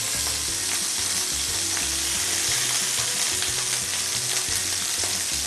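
Pieces of oxtail searing in very hot oil in a frying pan, a steady sizzle as they are turned with metal tongs. It is the high-heat sear that seals the meat on all sides.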